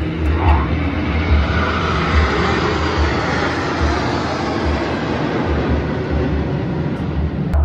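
Jet noise from a formation of BAE Hawk jets of the Surya Kiran aerobatic team flying past overhead, a steady rush whose pitch drifts as they pass, with wind rumbling on the microphone.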